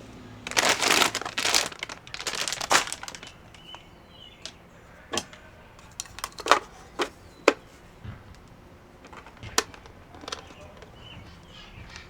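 Wild bird seed being poured from a plastic bag into a bird feeder: a loud rustling, crinkling rattle for about two and a half seconds, then scattered sharp clicks and taps as the seed and feeder parts settle.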